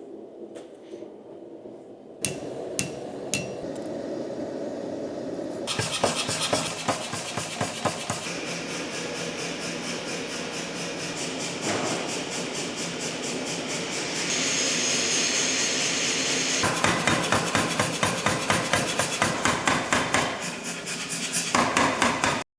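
Metal forging: hammer blows on steel being worked into a Damascus billet, a few separate strikes at first, then a long spell of rapid, dense strikes, and near the end a steady run of about three blows a second that cuts off suddenly.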